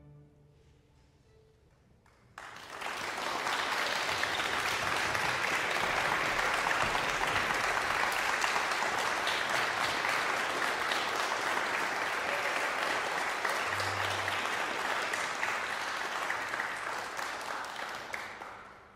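Audience applauding a string orchestra's final piece. The clapping starts suddenly after about two seconds of near silence, holds steady, and fades out near the end.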